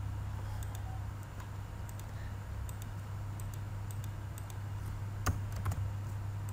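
Scattered light computer-keyboard keystrokes, with two louder clicks a little past five seconds in, over a low steady hum.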